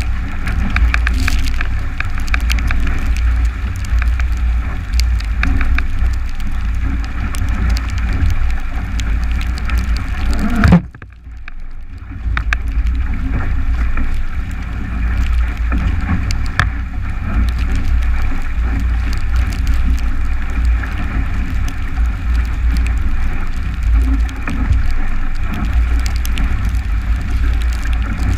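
Strong wind buffeting the camera microphone together with the rush and hiss of water past the hull of a 29er skiff sailing fast in heavy air. About ten seconds in there is a sudden loud hit, then the sound drops to a muffled quiet for about a second before the wind and water noise return.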